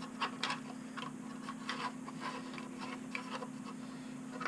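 Light, irregular plastic clicks and taps as a 3D-printed body is handled on a small SCX24 RC crawler, heard over a steady low hum.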